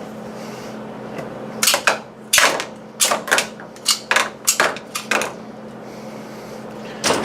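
Loose .40 S&W cartridges being dropped into a container one after another, clinking in a quick irregular series of about a dozen sharp clicks.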